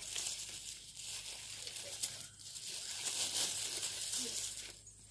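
Plastic fruit-protection bag around a guava crinkling as a hand squeezes and turns it, an irregular crackle.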